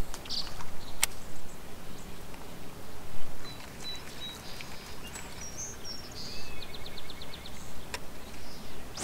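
Small birds chirping, with a short rapid trill near the end, over a quiet open-air background; two sharp clicks, one about a second in and one near the end.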